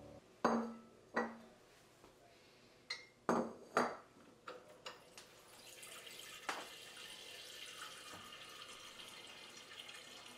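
A glass pitcher knocking and clinking against the sink a few times, five sharp knocks with a short ring, then from about halfway through a steady stream of water from a filtered-water tap running into the glass pitcher as it fills.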